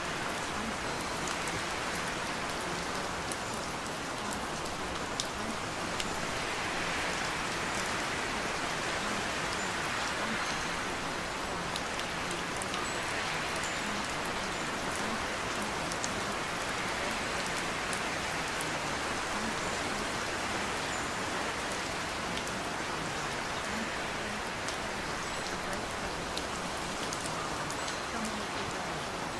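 Steady rain falling, a continuous hiss with a fine patter of drops, swelling and easing slowly every few seconds.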